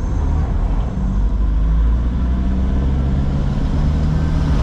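Car driving on a wet road, heard from inside the cabin: a steady low rumble of engine and tyres on wet pavement, with a low hum joining about a second in.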